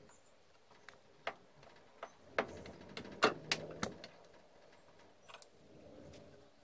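Pliers clicking and tapping against the steel clamp screw of a Stanley 742 clamp-on vice: a handful of sharp metal clicks between about one and four seconds in, then a few faint ticks.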